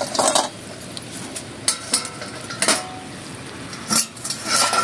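Metal cookware and utensils knocking and clinking: a ladle, knife and steel pots and bowls handled around the fire, about six separate sharp knocks.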